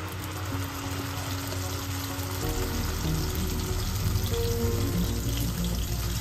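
Ground masala paste of peanuts, onion and spices sizzling in hot oil in a nonstick kadai as it is spooned in.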